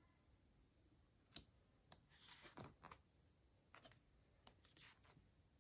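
Faint page turns of a large photobook: several soft paper clicks and swishes over near silence as the pages are leafed through.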